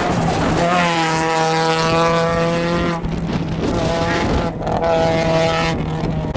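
Citroën Saxo rally car's engine revving hard as it accelerates away. It breaks off briefly about three seconds in for a gear change, then pulls again for a couple of seconds.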